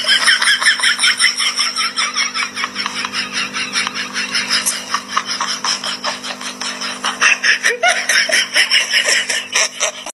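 Someone laughing hard without pause, about four 'ha's a second, over a steady low hum.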